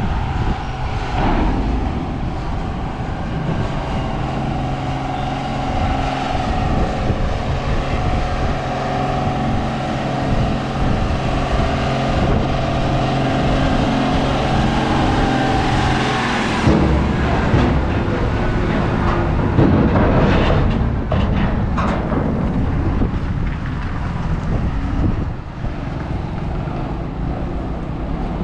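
Diesel engine of a loaded Tata goods truck running steadily as it drives slowly off the ferry across the steel ramp, coming close and passing about sixteen seconds in. After it passes, the engine tone gives way to rolling noise with several knocks as a car follows across the ramp.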